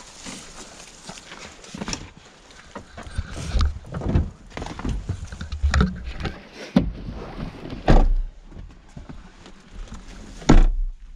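Irregular knocks, thumps and rustling as people climb into a car and settle gear, with camera handling noise. A louder thud comes about ten and a half seconds in, fitting a car door shutting.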